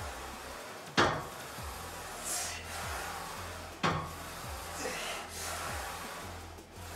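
Plate-loaded hack squat machine with 120 kg on it clanking sharply twice, about three seconds apart, as the sled moves through its reps, with a forceful breath between the clanks. Background music with a steady low beat runs underneath.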